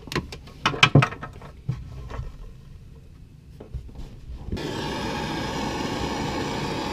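Sharp handling clicks and knocks of tools and wire, then a heat gun starts about four and a half seconds in and blows with a steady whir, shrinking heat-shrink tubing over a soldered wire splice.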